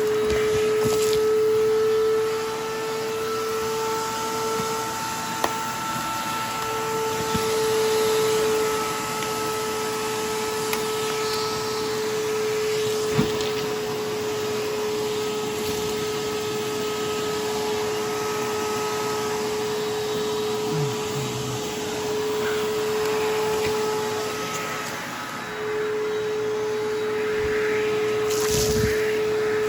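Miele upright vacuum cleaner running with a steady, high motor whine, which dips briefly a couple of times, around five seconds in and again near twenty-five seconds. It is not very good sounding, a sound the owner puts down to a motor dirtied because the bag was not fitted properly.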